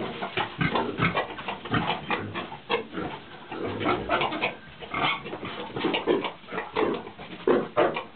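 Pigs grunting in quick, irregular short grunts, several a second, as a boar courts a sow.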